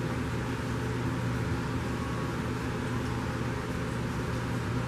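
Steady low mechanical hum with an even hiss.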